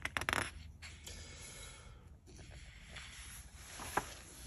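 Paper handling as a page of a large softcover book is turned: a quick flurry of soft crackles at the start, a light rustle, and a single sharp snap of the page about four seconds in.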